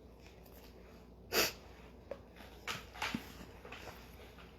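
A short, sharp intake of breath close to the microphone about a second and a half in, then a few fainter breaths.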